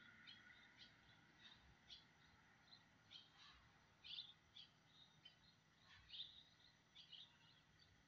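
Faint, short, high bird chirps, scattered irregularly, a few each second.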